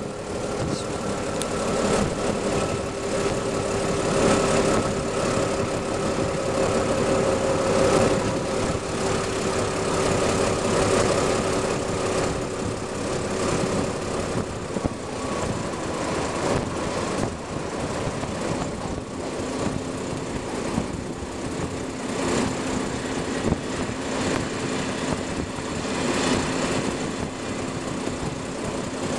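Passenger train running on the rails, heard at an open carriage window: wheel and track noise with wind, and a steady hum that drops to a lower pitch about halfway through as the train slows through the station yard.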